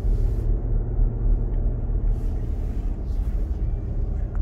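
Steady low rumble of a car driving uphill on a wet road, heard from inside the cabin: engine and tyre noise. A few short hisses come and go on top, near the start and twice in the middle.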